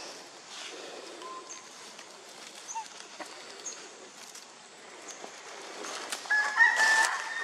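Outdoor animal calls: a few short, thin high calls, then a louder high-pitched call with several held tones starting about six seconds in.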